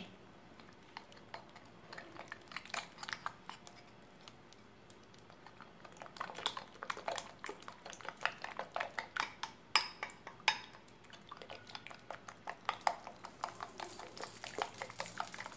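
A spoon clinking and scraping against a bowl while stirring minced chicken batter with flour mixed in. The light, irregular clicks are sparse at first and come thicker from about six seconds in.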